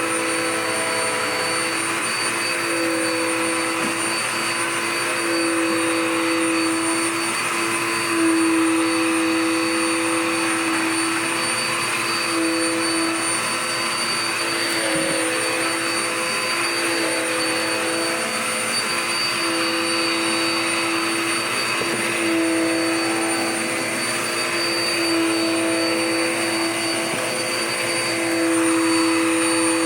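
Dirt Devil Power Max vacuum cleaner running steadily while sucking up scraps of paper, its motor whine swelling and fading over a constant rush of air.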